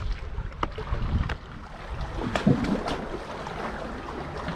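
Sea water sloshing and splashing close to the microphone around a swimmer, with wind rumble and a few sharp knocks; the loudest churning comes about two and a half seconds in.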